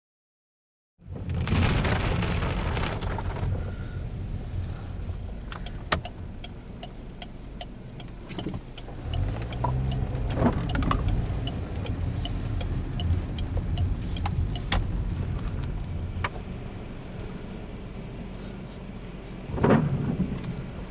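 Inside a car in a rainstorm: a low engine rumble under the rush of wind and rain, with scattered sharp ticks of drops and spray striking the windshield. The sound starts about a second in, and there are louder rushes right after it starts and again near the end.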